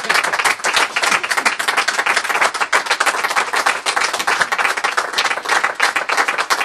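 Live audience applauding: dense, steady clapping of many hands.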